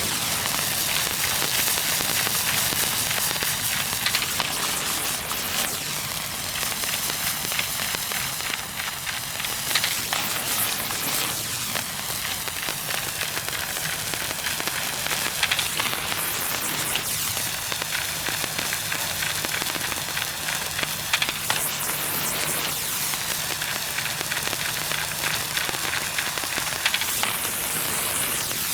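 A handheld-style sparkler burning steadily in the ball of a battery-powered novelty seal toy, giving a continuous dense fizzing and crackling with small sharp pops. A faint low hum runs underneath.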